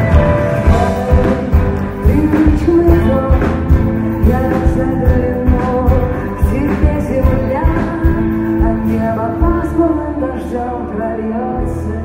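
Live rock band playing: a woman singing into a microphone over guitar, with a steady drum beat that thins out near the end.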